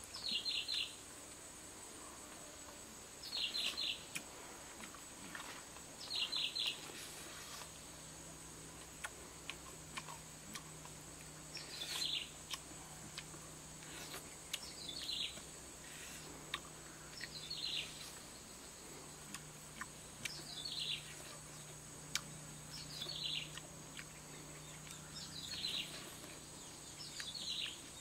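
A bird repeating a short call of a few quick descending notes every two to three seconds, over a steady high-pitched insect drone.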